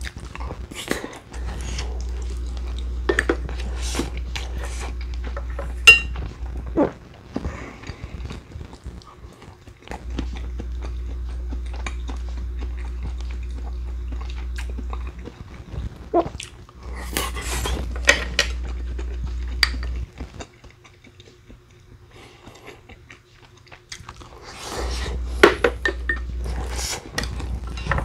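A person eating: chewing and biting, with spoon or chopsticks clinking against bowls and dishes. The sharpest clink comes about six seconds in. A steady low hum comes and goes underneath.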